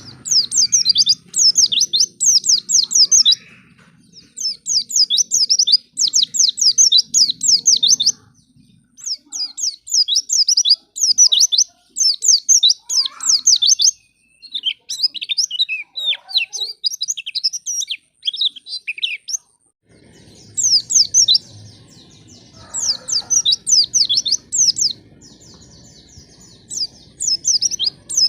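White-eye (pleci) song: phrases of rapid, high, sharply falling chirps, a second or three each, with short pauses between, over a faint low rumble. This is a lure recording, used to prompt kept white-eyes to start singing.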